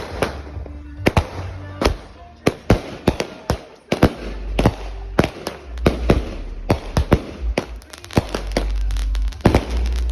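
A 49-shot firework cake firing a fast run of sharp bangs, a few a second and more crowded toward the end. Music with a heavy bass plays under it.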